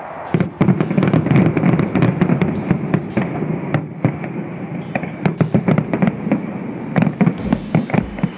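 Fireworks going off in a dense, rapid series of sharp bangs and crackles over a low rumble.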